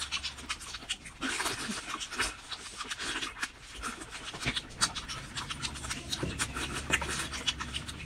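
Close-miked wet chewing and smacking of cooked octopus, a steady run of small, irregular clicks and squelches.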